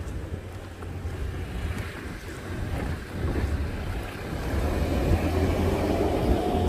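Wind buffeting the microphone over a steady outdoor rush, getting louder about halfway through.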